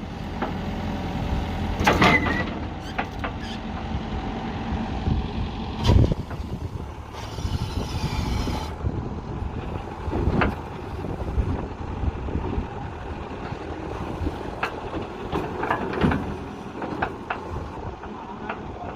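JCB backhoe loader's diesel engine running steadily, with four sharp knocks spread through and a hiss lasting about a second and a half near the middle.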